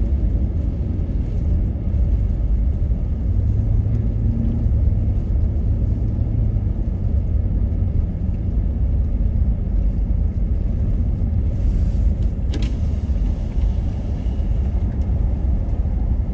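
Steady low rumble of a car driving: engine and tyre noise on a snowy road, heard from inside the cabin, with one sharp click about twelve seconds in.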